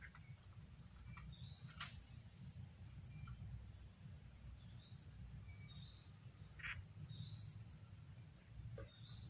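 Steady high-pitched insect drone over a low rumble, with a few short, faint chirps, a single sharp tick about two seconds in and a brief rasp near the end.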